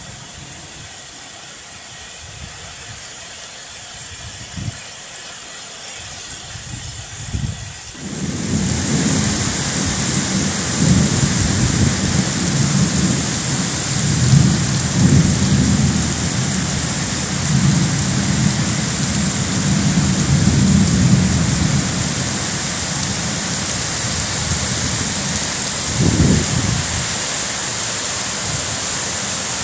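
Heavy thunderstorm downpour with gusting wind. The rain swells suddenly into a much louder, steady pour about eight seconds in, with low rumbling swells running under it.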